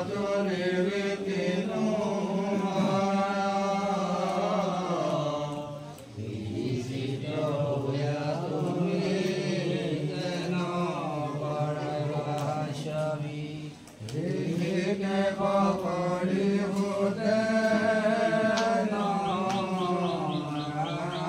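Men chanting nam-prasanga in long, slow, drawn-out phrases, pausing for breath about six and fourteen seconds in. A quick run of light ticks comes in near the end.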